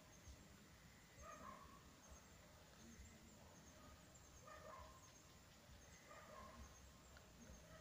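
Near silence: quiet night ambience with a faint animal call repeating four times, about every one and a half seconds.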